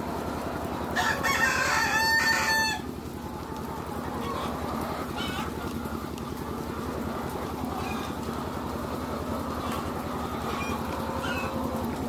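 Flock of caged laying hens: a steady din of many chickens clucking and calling, with one loud, long crow-like call about a second in, and shorter calls scattered after it.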